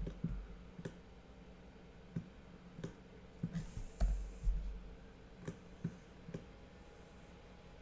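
Scattered, irregular clicks of a computer mouse and keyboard, about a dozen spread over several seconds, as a value is set in 3D software.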